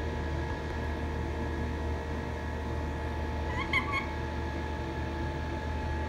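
Steady background hum, and a little over halfway through a parrot gives one brief chirp of two or three short rising notes.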